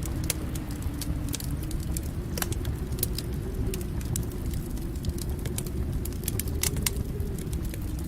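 Fire in a fireplace crackling, with frequent irregular sharp pops and snaps over a steady low rumble.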